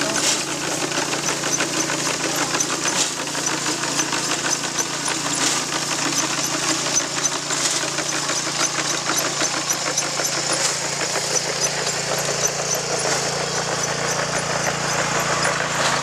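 Small engine of a walk-behind rice binder running steadily as it cuts rice stalks, with a sharp clack every two or three seconds as the binding mechanism ties and throws out a sheaf.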